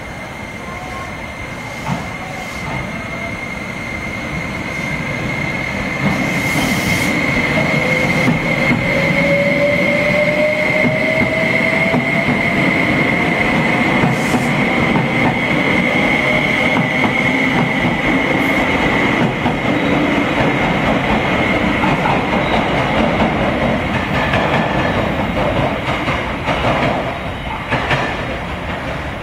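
A Series 273 limited express electric train pulling out and running past: steady wheel-and-rail rumble with clicks over the rail joints, a tone rising in pitch as it picks up speed, and a steady high-pitched squeal through the first two-thirds. It grows louder as the train goes by, then eases as it draws away.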